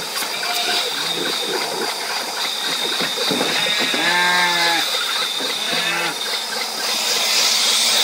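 Ewes bleating twice, a long bleat about four seconds in and a shorter one near six seconds, over a steady hiss from the running milking machine.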